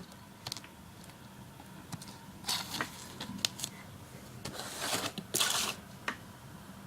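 Cardboard packaging being handled and cut open with a knife: a few short rustling, scraping bursts with some light clicks.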